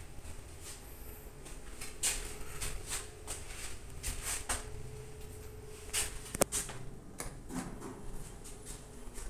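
Inside a Mitsubishi elevator car: a faint steady hum, with scattered soft knocks and rustles and one sharp click about six and a half seconds in.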